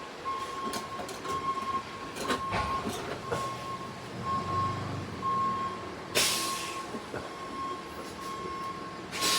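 Light metallic clicks and taps of a heater cover being fitted and fastened by hand, with two short hissing swishes, about six seconds in and near the end. A high beep of one pitch repeats steadily behind it, a little faster than once a second.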